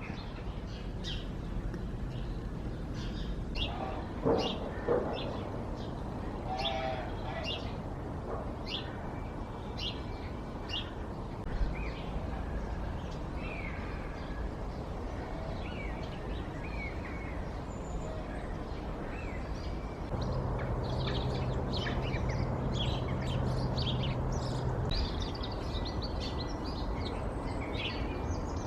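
Birds chirping, with many short high calls and a few quick gliding notes through the whole stretch. A low steady hum joins about twenty seconds in and stops a few seconds later.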